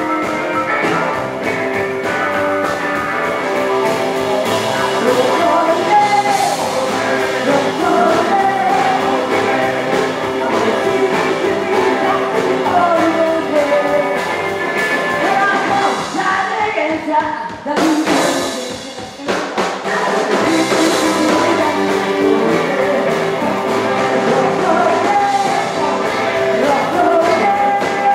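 Live rockabilly band playing, with singing over guitar and drums; the music briefly drops away about two-thirds of the way through, then comes back in.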